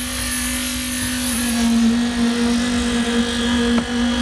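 Concrete needle (poker) vibrator running in fresh concrete, a steady hum at one even pitch that steps up slightly about a second in, over a low rumble. It is compacting the concrete, shaking out trapped air.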